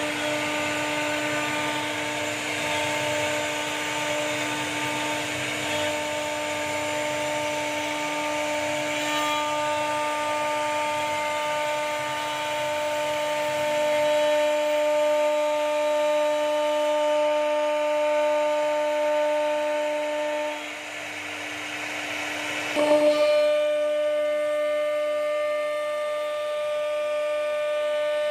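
CNC router spindle whining steadily as its bit carves into a wooden panel, with the rasp of the cut over the whine. About three-quarters of the way through the sound dips, then comes a short, sudden louder burst, after which the whine carries on at a slightly changed pitch.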